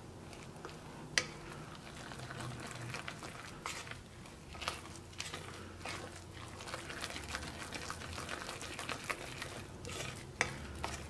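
A spoon stirring and scraping a thick, coarse batter of ground rice, urad dal and crushed coconut in a ceramic bowl, with irregular sharp clicks of the spoon against the bowl.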